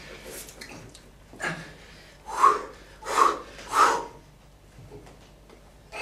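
A puppeteer's voice making wordless sounds for an eyeball puppet: a breathy puff, then three short vocal sounds a little under a second apart.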